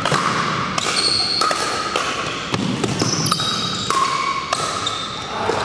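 Pickleball paddles striking plastic pickleballs in an irregular run of sharp pops, about two a second, from several games at once. Each pop has a brief ringing tone and echoes in a large gym.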